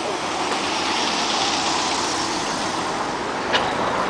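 Street traffic: a motor vehicle passes, its noise swelling and then easing off. A short click sounds near the end.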